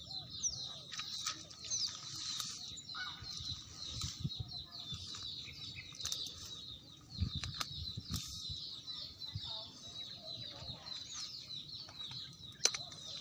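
Small birds chirping in many short, high calls throughout, with a few scattered low thumps.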